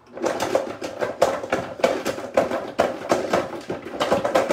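Vitamix blender switched on and grinding garlic cloves with a chunk of hard pecorino cheese. The motor's noise starts suddenly and runs loud, with the hard pieces knocking and rattling rapidly and unevenly against the container.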